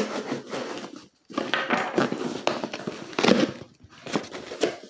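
Plastic packaging crinkling and rustling as it is handled, with irregular clicks and crackles and a short pause a little after a second in.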